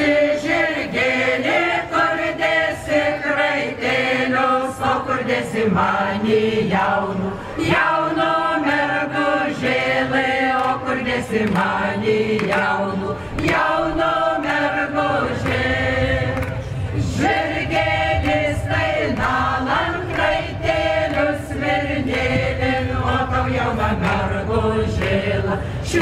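A folk choir singing a Lithuanian folk song together, one steady continuous strain of many voices.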